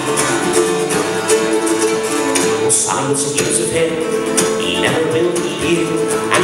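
A live folk band plays a ballad in steady time: a bowed fiddle holds and changes sustained notes over strummed acoustic guitar and a plucked mandolin.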